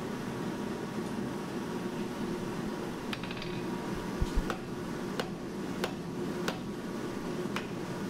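Steady shop hum, with sharp strikes starting about three seconds in and coming at an even pace, about three every two seconds, as a blacksmith's hammer works metal.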